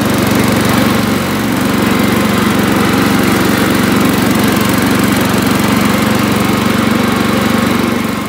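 The 11 hp engine of a 1978 Montgomery Ward garden tractor, built by MTD, running steadily. Its pitch shifts slightly about a second in.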